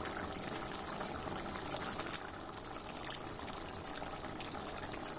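Watery, oil-free pork curry simmering in a wok: a steady bubbling hiss, with a few brief sharp pops about two, three and four and a half seconds in.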